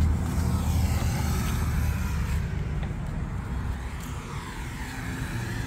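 Road noise of a car on the move: a low rumble of tyres with a hiss above it that swells and fades, growing gradually quieter.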